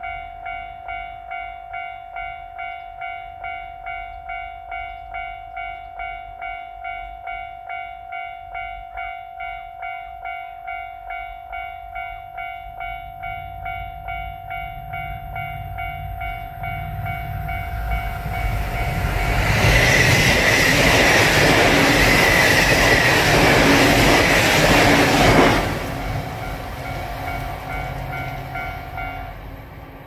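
Japanese level-crossing electronic warning bell ringing steadily, about two strikes a second. A JR Shikoku 8600 series limited express electric train approaches with a growing rumble, passes loudly for about six seconds starting about two-thirds in, and fades as the bell stops near the end.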